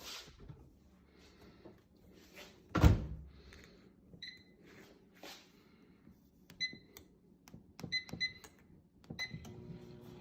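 A microwave oven door shuts with a loud thump. Five short keypad beeps follow as the timer is set, and about nine seconds in the microwave starts running with a steady hum.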